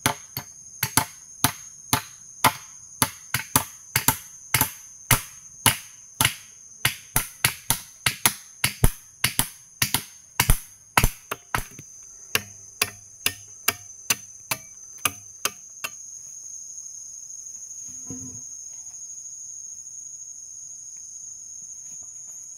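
A hand tool striking repeatedly in quick, steady blows, about two a second, stopping about two thirds of the way through. Under the blows, forest insects keep up a steady high-pitched drone that stands out more once the strikes stop.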